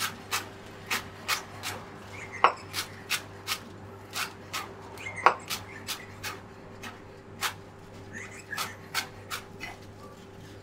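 Chef's knife chopping fresh parsley on a wooden cutting board: steady knife strikes on the board, about two to three a second, a few harder than the rest. A faint steady hum runs underneath.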